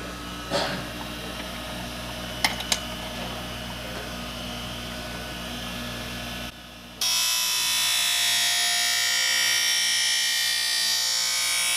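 Skate sharpening machine running with a steady hum, a brief swish and two sharp clicks early on; then, about seven seconds in, a loud, high, hissing grind of the sharpening wheel running along a steel skate blade for about five seconds, the final sharpening pass.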